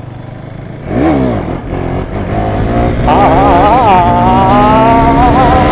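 Motorcycle engine accelerating under the rider: a quick rise and fall in revs about a second in, then loud and higher-revving from about three seconds in, the pitch wavering as the throttle changes.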